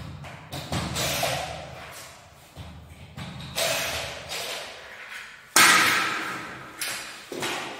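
Irregular heavy knocks and bangs, about eight in all, each ringing out briefly in the room; the loudest comes a little past the middle.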